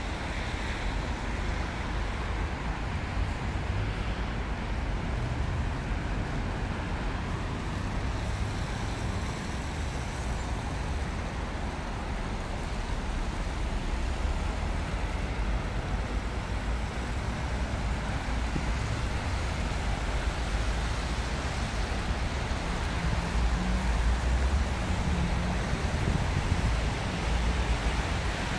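Steady city street ambience: a continuous rumble of road traffic, swelling a little louder near the end as vehicles pass.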